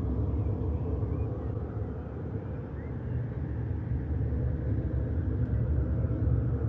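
Steady low rumble with a few faint, short high chirps here and there.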